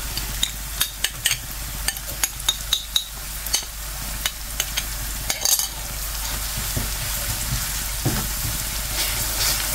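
Oil sizzling in an aluminium pan as chopped onions, cumin and bay leaves fry, while a spice paste is added and stirred in with a wooden spoon. Frequent sharp ticks over the sizzle in the first half, settling into a steadier sizzle from about six seconds in.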